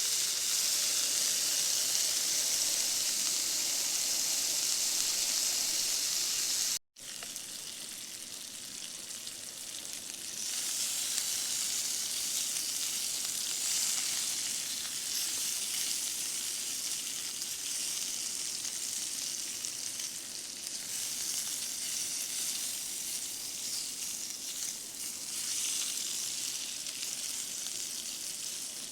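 Small smoked sausages sizzling and frying in a pan, a steady hiss. It cuts out abruptly about seven seconds in, then resumes a little quieter and grows louder again a few seconds later.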